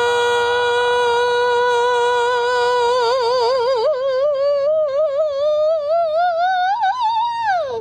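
One long sung or hummed note, held steady for about three seconds, then wavering and slowly rising in pitch, and gliding sharply down at the end.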